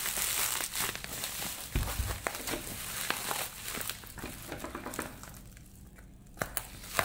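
Plastic bubble wrap crinkling and rustling as hands handle and turn a wrapped package, with a dull knock about two seconds in. Near the end it quiets, then a few sharp snips as scissors start cutting into the bubble wrap.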